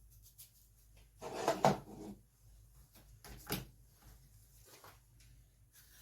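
Knife cutting through pear onto a cutting board: a cluster of cuts and knocks about a second in, a second shorter one a little past the middle, and light taps between.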